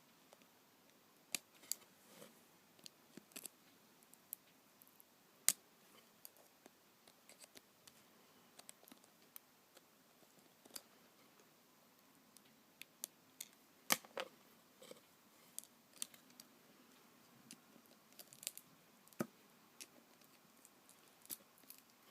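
Irregular small clicks and taps of tools and parts being handled as an iPhone 4 is taken apart for its battery to be removed, with a few sharper clicks among many faint ones.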